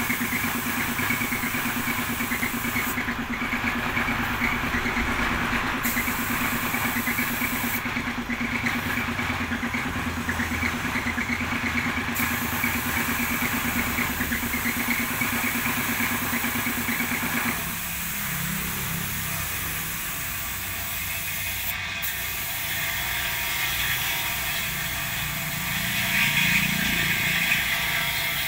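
A belt-driven electric air compressor running with a steady hum while a paint spray gun hisses, the hiss cutting out twice in the first half as the trigger is released. About two-thirds of the way through, the compressor's steady hum stops.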